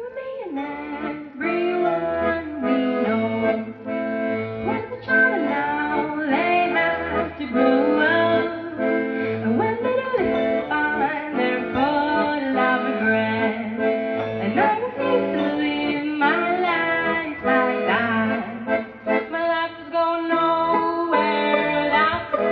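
Live band playing a waltz, led by accordion and violin over a repeating bass line.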